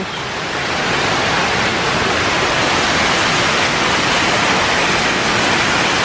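Large waterfall falling into a canyon below, a steady, even rush of water.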